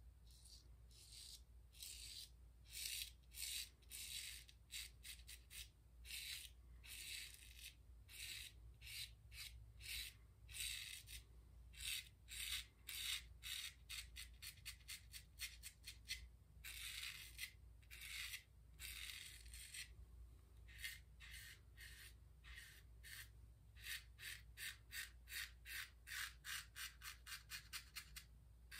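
Ever Ready 1914 single-edge safety razor scraping through lathered stubble in short, repeated strokes, each a quiet crisp scratch; the strokes come quicker near the end.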